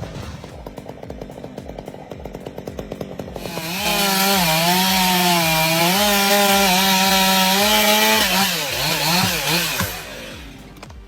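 Background music with a steady beat, then about three and a half seconds in a chainsaw runs loud at full throttle for about five seconds, its pitch dipping and rising as it cuts into wood, before it wavers down and fades out near the end.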